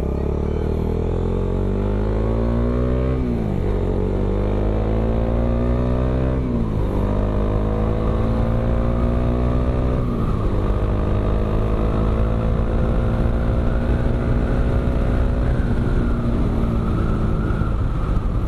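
Bajaj Dominar 400 UG2's single-cylinder engine through an Akrapovic M1 slip-on exhaust, accelerating hard at high revs. The revs climb and drop back with an upshift three times, about three, seven and ten seconds in, then hold high and ease off slightly near the end.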